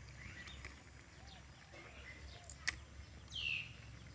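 Quiet outdoor background with a steady low hum and scattered faint bird chirps. A single sharp click comes a little past halfway, and a louder short high chirp that falls in pitch follows about three and a half seconds in.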